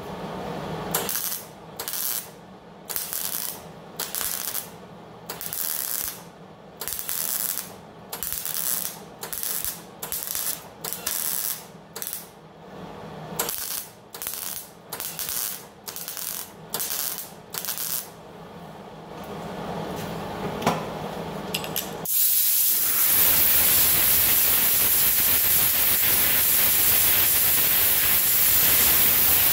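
MIG welder laying a long run of short tack welds along a steel body seam: about twenty brief bursts, a little more than one a second. About 22 seconds in, a steady loud hiss of compressed air from a homemade blowgun starts, blown onto the fresh welds.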